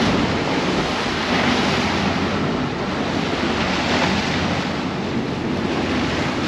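Strong wind buffeting the microphone over the steady rush and splash of choppy sea along a boat's hull under way in about 22 knots of wind.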